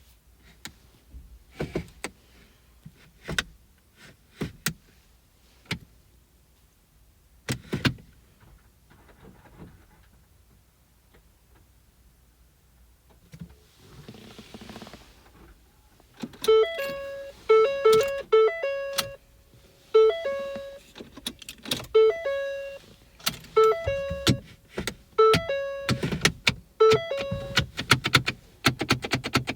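Clicks from a Ford with a DPS6 dual-clutch transmission as its ignition and controls are worked. From about halfway its dashboard warning chime sounds over and over in short pitched tones, with clicks coming faster near the end. The car won't start because its transmission control module has fully failed.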